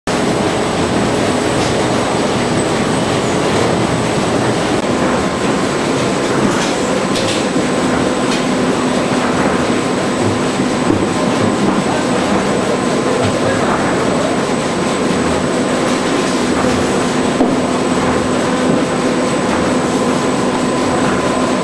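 Optical tomato sorter-sizer running: grooved brush rollers singulating tomatoes onto roller conveyor lanes, making a steady, dense mechanical clatter and whir. A few faint steady hums and a thin high whine run through it.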